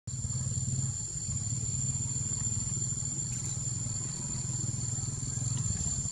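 A steady low engine rumble with rapid even pulsing, and a steady high-pitched drone above it.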